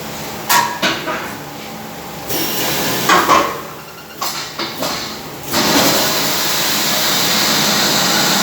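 Barrel washing machine: a few knocks and clunks, then about five and a half seconds in it starts running with a loud, steady mechanical noise.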